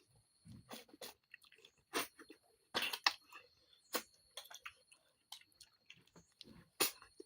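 Close-miked eating of snails: chewing with irregular sharp clicks and wet smacks.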